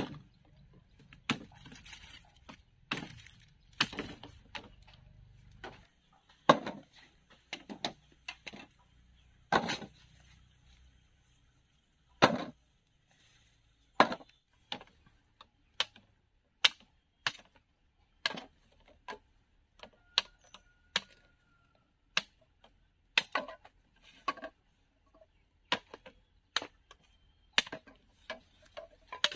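Repeated sharp chopping strikes, irregular, roughly one a second, with a brief pause partway through.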